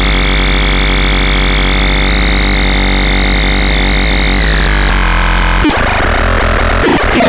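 Veverka Rodí synthesizer putting out a loud, dense buzzing drone with a steady high tone that slides down a little about four seconds in. About five and a half seconds in it breaks into harsher, ragged noise, and fast sweeping pitch glides start near the end.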